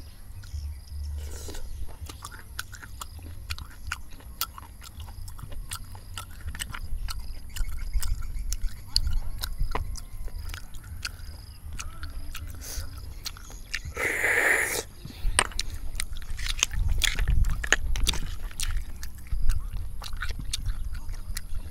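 Close-up eating of spicy fried snails: chewing and wet mouth sounds, with many small sharp clicks of snail shells knocking against each other and the metal pan. A short louder burst of noise comes about fourteen seconds in.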